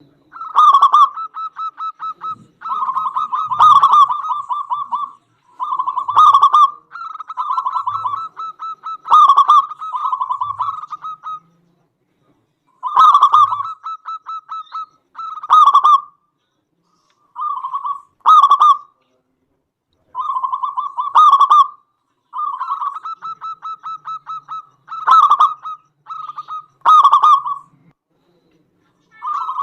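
Zebra dove (perkutut) cooing: phrases of rapid rattling coo notes, each with one or two loud accented notes, repeated about a dozen times with short pauses between them.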